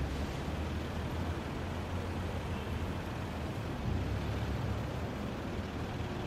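City street traffic din: a steady low rumble of vehicle engines and tyres.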